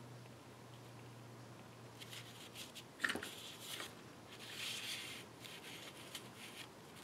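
Sheets of card stock and patterned paper being handled and slid across a table: soft, irregular rustling and scraping, with a sharper tap about three seconds in.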